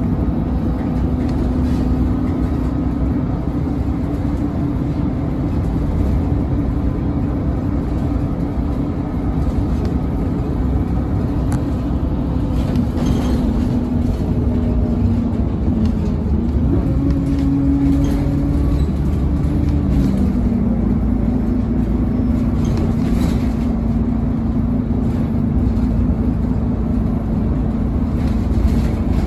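City bus engine and drivetrain running, heard from inside the passenger cabin: a steady low rumble with a humming tone that shifts in pitch a few times in the second half.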